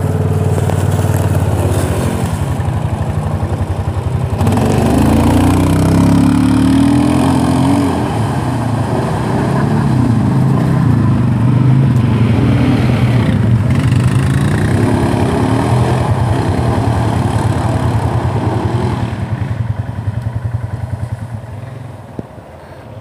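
Several ATV (four-wheeler) engines revving and accelerating in turn as the quads pull away, the pitch rising and falling with each throttle-up. The sound fades near the end as the last one rides off.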